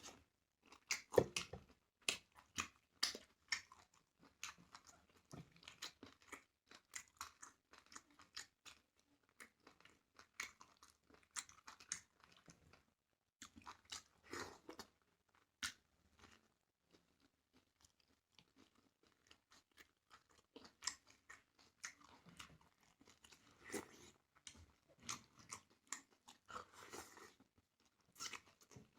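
A person eating starch, a cassava swallow: chewing and mouth smacking in short, irregular runs, with a few brief pauses.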